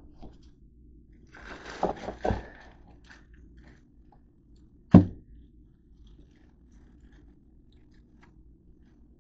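A plastic bag crinkling and rustling as it is handled over a lined kitchen trash bin, with one sharp knock about five seconds in. A low steady hum runs underneath.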